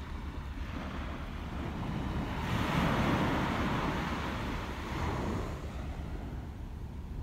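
Sea surf washing on rocks, a steady rush with one surge that swells up about two and a half seconds in and dies away by about five and a half seconds, with some wind on the microphone.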